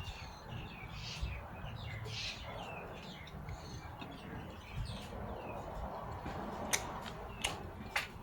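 Small birds chirping over and over, with three sharp clicks or taps near the end.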